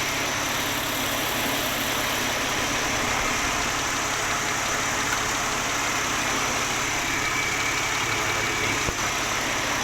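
Mercedes-Benz CLK320's engine idling steadily with the air conditioning running, during a refrigerant recharge.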